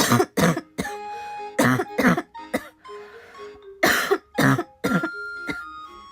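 A young woman coughing hard in a persistent fit: about nine sharp coughs, mostly in close pairs every second or two, with soft background music underneath.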